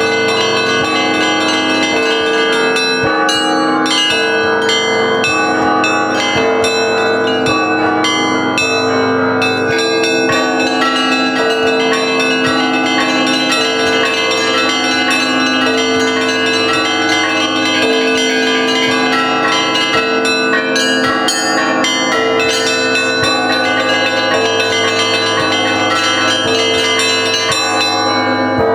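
Russian Orthodox monastery bells ringing together in a continuous peal: quick strikes of the smaller bells over a deeper bell that sounds again about once a second.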